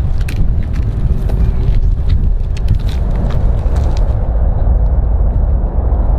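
Steady low roar of a large jet airliner's engines on the runway, heard from a distance, with wind buffeting the microphone.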